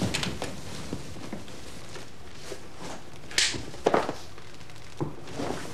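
Cloth handling as a heavy ceremonial robe is pulled off over the head: a brief swish of fabric about three and a half seconds in, with a few soft knocks and thumps around it, over steady tape hiss.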